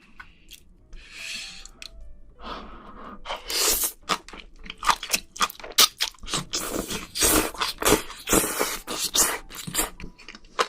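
Close-miked mouth sounds of someone eating spicy braised seafood: quiet at first, then from about two and a half seconds in a dense run of crunching, wet chewing and slurping.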